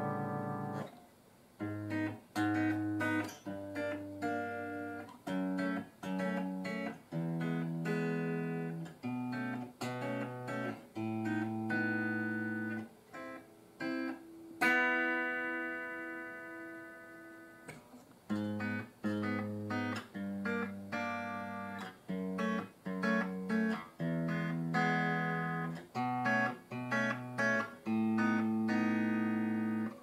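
Clean electric guitar played through a guitar combo amplifier: short, clipped chords and single bass notes with brief rests between them. A fuller chord rings out for a few seconds about halfway through.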